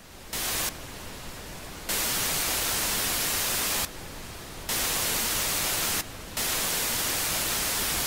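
Old television's static hiss, an even rushing noise that jumps between a louder and a quieter level several times, every second or two.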